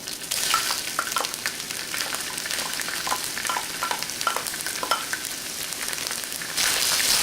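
Diced rehydrated shiitake mushrooms sizzling in hot oil in an electric wok: a steady frying hiss with many small crackling spatters. The sizzle gets louder near the end.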